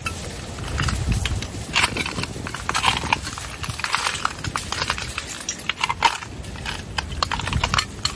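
Irregular clinking and crunching of broken window glass and storm debris, in clusters about once a second, over a low wind rumble on the microphone.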